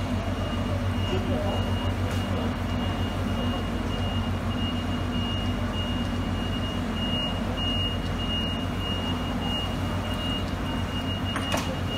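Steady low machine hum with a thin, high-pitched whine over it.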